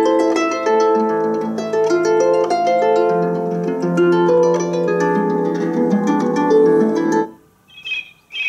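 Vertu ringtone played from a phone through a BlitzWolf F1 Bluetooth speaker: a plucked, harp-like melody of many notes that stops about seven seconds in. Near the end come the first high chirps of a birdsong ringtone.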